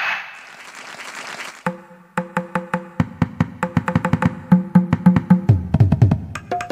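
Casio CT-X700 keyboard playing its built-in percussion sounds. A hissing effect fades away, then from about two seconds in comes a fast run of woody, pitched percussion hits like a wood block, getting busier toward the end.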